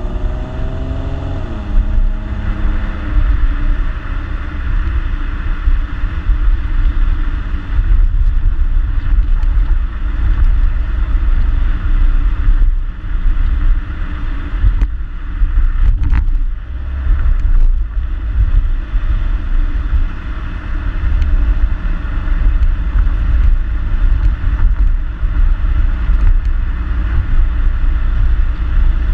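2014 Ford Mustang's 3.7-litre V6 through its stock exhaust while driving: the engine note rises under acceleration, drops sharply about two seconds in, then settles into a steady low drone with road noise. A brief knock comes about halfway through.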